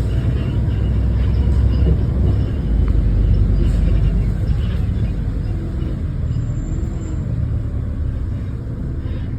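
Bus running along steadily, a low engine and road rumble that eases slightly in the second half.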